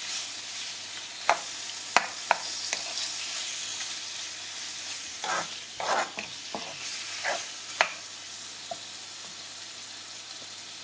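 Diced chicken with chopped ginger and garlic sizzling steadily as it fries in hot oil in a pan. A utensil stirs and turns the pieces, knocking and scraping against the pan now and then.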